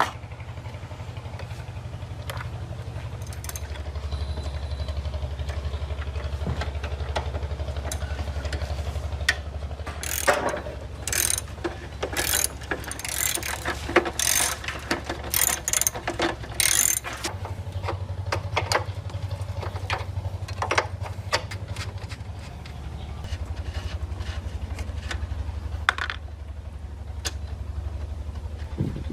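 Hand tools working on metal motorcycle parts: ratchet-like clicking and scattered metal clanks, thickest about a third of the way in, over a steady low hum.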